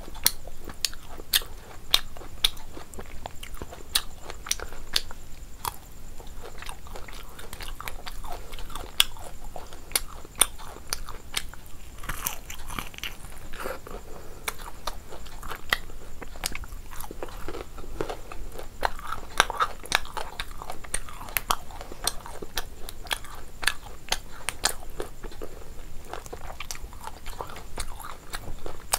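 Close-miked chewing and biting of a mouthful of rice and fish eaten by hand, with many sharp, irregular wet clicks and smacks.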